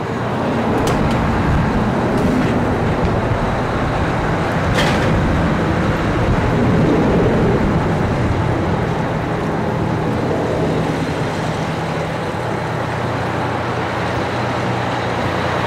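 Heavy vehicle engine, such as a fire engine's, running steadily at idle with a low hum. Three brief clicks sound in the first five seconds.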